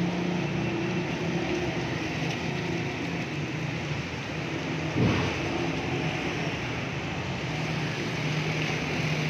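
Street noise on a waterlogged road: a motor vehicle engine running, heard as a low hum that fades out and comes back near the end, over a steady noise. A single sharp thump about halfway through.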